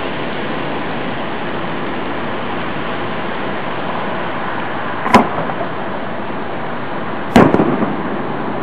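Two aerial firework shells bursting about two seconds apart, each a sharp bang; the second is followed by a brief trail of smaller pops. A steady rushing background noise lies under them throughout.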